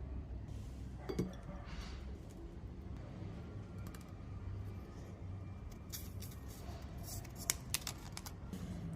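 Small hard objects clicking and tapping over a low hum: a click about a second in, then a cluster of sharp clicks in the second half.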